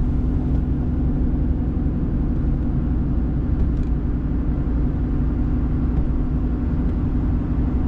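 Steady engine and road rumble heard inside a moving truck's cab, with a constant low hum under it.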